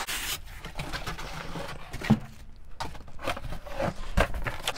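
Cardboard box and polystyrene foam packing scraping and rustling as a welder in its foam end caps and plastic bag is pulled out of the box and set on a wooden workbench, with scattered knocks and a couple of sharper thumps.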